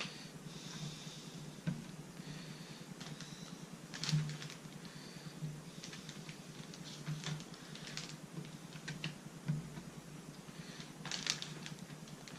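Quiet, irregular knife taps and clicks on a cutting board, with faint rustling, as walleye fillets are cut in half.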